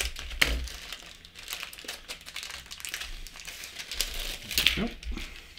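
Clear plastic bag crinkling and rustling as it is handled, with a plastic model-kit sprue inside it. The crinkling is irregular, with sharper crackles about half a second in and again near the end.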